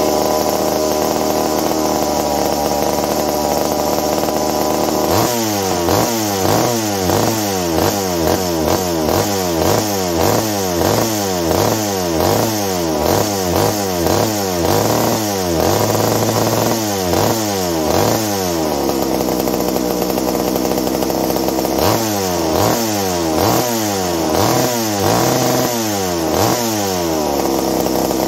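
McCulloch 790 saw's MC101 two-stroke engine running fast with no true idle. From about five seconds in it is blipped on the throttle roughly once a second, each rev rising and falling back. It holds steady for a few seconds past the middle, then is blipped again. The fast idle won't come down, which the owner suspects is an air leak.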